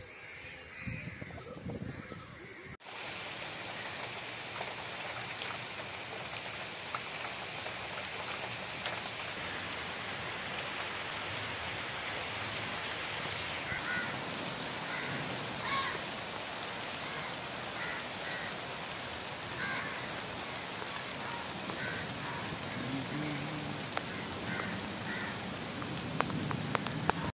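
Steady rain falling on trees and garden plants, starting about three seconds in. A bird gives short, repeated calls through the second half.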